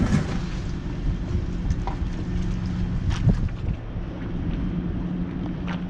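Wind buffeting the microphone as a steady low rumble, with a faint steady hum underneath and a few light knocks and clicks.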